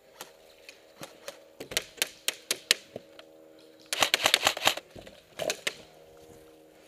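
Airsoft gunfire: sharp ticks about four a second, then a dense rapid burst about four seconds in, and a few more ticks after it.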